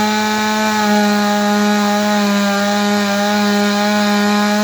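Two-stroke chainsaw engine held at full throttle, running at a steady high pitch without wavering.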